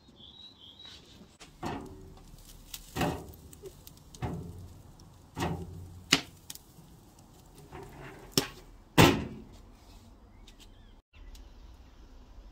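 A series of irregular knocks and clanks from whole eggplants being set down on the metal grate of a barrel charcoal grill. Some knocks ring briefly, and the loudest comes near the end.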